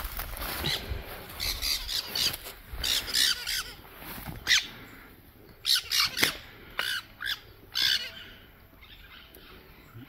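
Birds squawking: a string of short, harsh calls, some in quick pairs, that stop about two seconds before the end.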